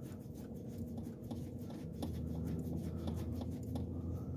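Light scraping and a few soft ticks as a gloved hand slowly turns a fine-threaded part onto the snowmobile's carburetor by hand, over a steady low hum.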